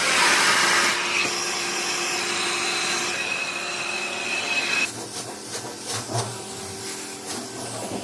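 Carpet-cleaning extractor's vacuum sucking through the wand on a carpet, a loud steady rush with a high whine. About five seconds in it drops to a quieter hum with a few clicks.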